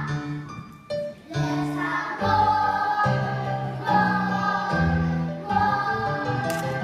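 Children's chorus singing a show tune in long held notes, with a short break about a second in.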